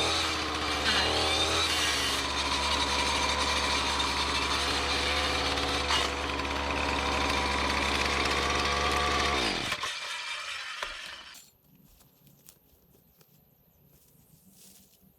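Small gas engine of an attachment-type weed eater running at high speed while cutting briar bushes, revving up and down briefly near the start. It is shut off about ten seconds in and winds down to a stop.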